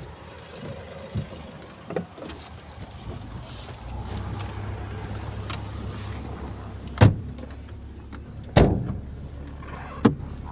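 A vehicle's engine running steadily at idle, with four heavy thumps in the second half as someone climbs into the vehicle and knocks against the door and seats.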